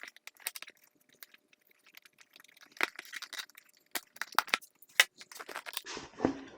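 Irregular sharp clicks, taps and light rattles of hand work on motorcycle parts, as seat and body pieces are taken off to reach the exhaust servo motor.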